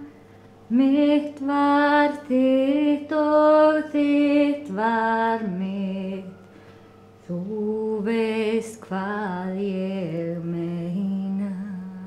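A woman singing solo and unaccompanied in Icelandic: a slow melody of long held notes that moves lower in the second half, with a short pause about six seconds in.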